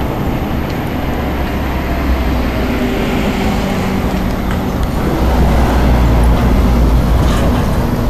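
Road traffic noise, a steady low rumble that grows louder about five seconds in and eases off near the end.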